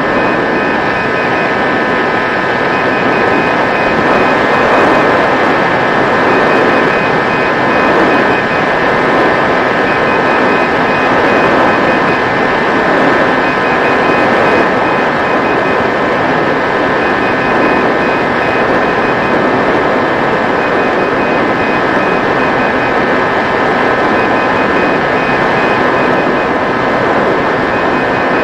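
Electric motor and propeller of a Mini Drak flying-wing RC plane whining at a steady pitch in flight, over a steady rush of air noise.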